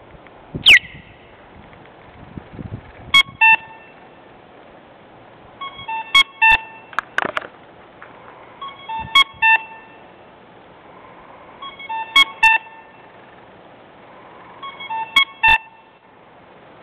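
Malfunctioning pedestrian-crossing sound beacon stuck on, giving a pair of short electronic beeps about a third of a second apart every three seconds, five times over. A brief falling whistle sounds near the start and a short pitched sweep around the middle.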